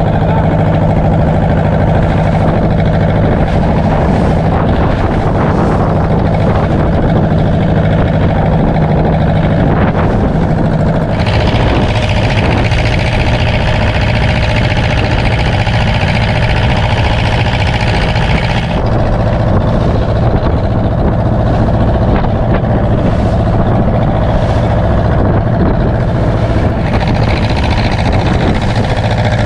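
A fishing boat's diesel engine running steadily under way while trolling. About a third of the way in its note drops and a hiss rises over it. The hiss eases a few seconds later and comes back near the end.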